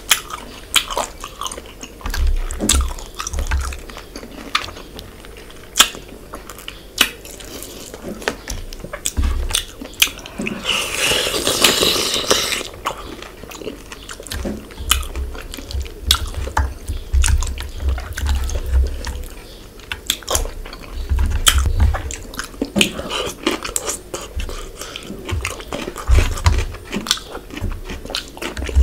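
Wet eating sounds of fish head and fish curry eaten by hand: chewing, lip smacks and sucking at the bones, with a longer slurp about eleven seconds in.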